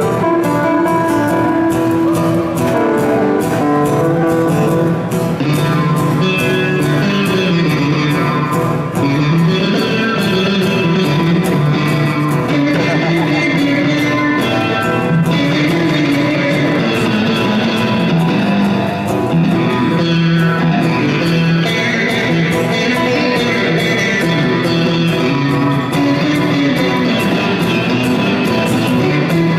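Live electric guitar and strummed acoustic guitar playing together in an instrumental passage of a rock song.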